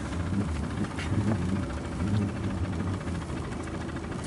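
A small boat's motor running slowly in forward gear, a steady low hum that rises and falls a little.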